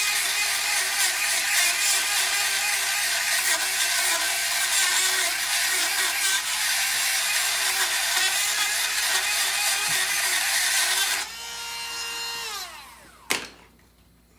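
Dremel rotary tool grinding rust off a brake caliper bracket where the pad seats too tight. It runs with a steady high-pitched whine, and about eleven seconds in it is switched off and its pitch falls as it spins down. A single click comes near the end.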